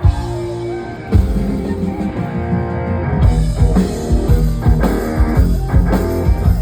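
A live band playing through a PA sound system: sustained guitar notes, with the drum kit coming in about three seconds in and keeping a steady beat.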